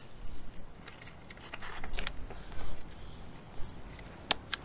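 Plastic food wrapper crinkling and scratching in the hands as it is worked at to tear it open, with a few sharp clicks, two of them close together near the end.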